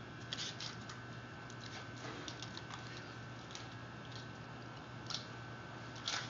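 Poodle licking and smacking at a drinking straw held up to its mouth: scattered short, wet clicks, the strongest about half a second in and just before the end, over a steady low hum.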